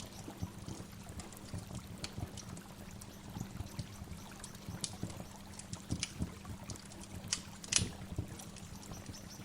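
Waterfall water splashing and trickling, with irregular sharper splashes and one louder splash near the end.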